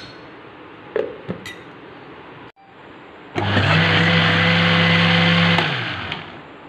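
Electric countertop blender with a glass jar blending thick chickpea paste for hummus. The motor starts abruptly a little over three seconds in, runs with a steady hum for about two seconds, then winds down. A couple of light knocks come before it starts.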